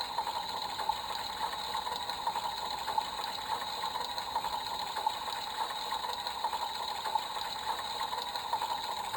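A small battery-powered toy mechanism running steadily, whirring with fast, even clicking of its gears.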